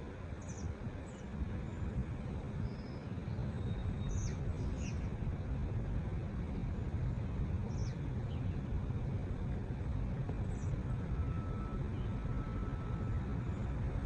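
Steady low outdoor rumble with a few short, high bird chirps scattered through it, each falling slightly in pitch.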